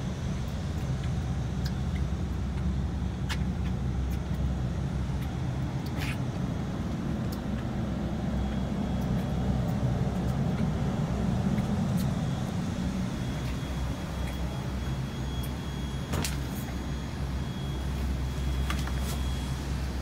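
Isuzu Gala coach's diesel engine idling, a steady low hum heard from inside the passenger cabin, with a few sharp clicks and knocks along the way.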